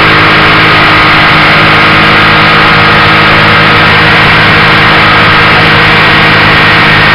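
Motorcycle engine running steadily at cruising speed, with a steady rush of wind and road noise over it.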